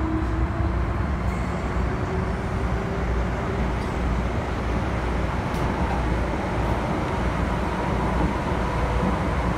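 MTR M-Train electric subway car running through the tunnel, heard from inside the carriage: a steady, loud rumble of wheels on rail. Over it a faint whine rises slowly in pitch during the first few seconds, and a higher faint whine holds in the later seconds.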